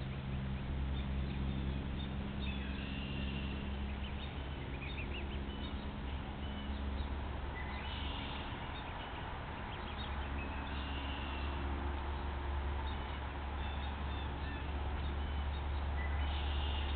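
Scattered short, high bird peeps and chirps, some in quick runs, over a steady low hum and hiss.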